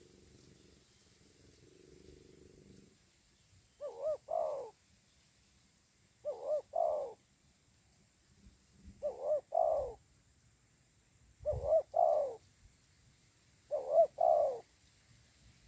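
Spotted dove cooing: five short two-part coo phrases, evenly spaced about two and a half seconds apart, starting about four seconds in.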